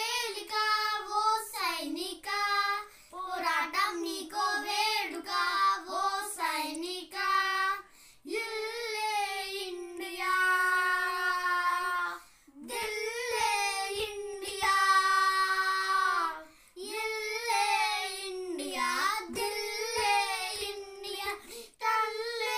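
Two boys singing a Telugu patriotic song together, unaccompanied, in phrases broken by short breaths, with two long held notes in the middle.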